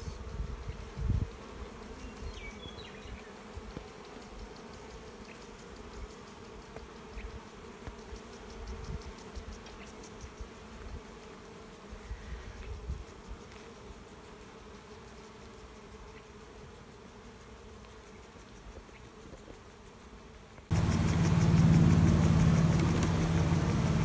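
A swarm of honeybees buzzes steadily around an open, crowded hive, with occasional low bumps on the microphone. About 20 seconds in the sound cuts abruptly to a louder, steady low hum.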